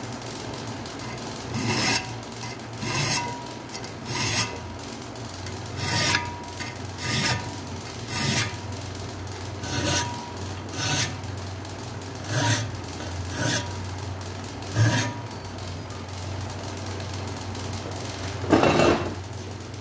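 Steel hand file rasping across the spine of a knife blade clamped in a vise, cutting decorative file-work notches (mosqueado). About a dozen short strokes come roughly once a second, then a pause and one longer, louder rasp near the end.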